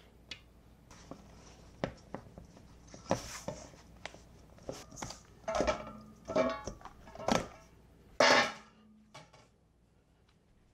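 Silicone spatula scraping and knocking in a stainless steel mixing bowl as water is worked into flour for dumpling dough: irregular scrapes and taps, with a louder clank of the bowl a little after eight seconds in.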